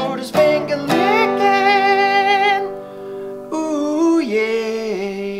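Closing theme song: a sung tune over acoustic guitar. The strumming stops about a second in, and the voice then holds long notes with vibrato in two phrases, the second stepping down in pitch.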